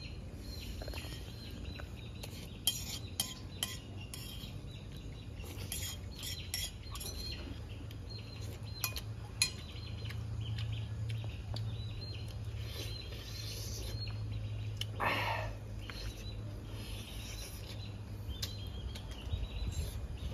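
Metal spoon clinking and scraping against a ceramic plate while eating: scattered sharp clinks over a steady low hum.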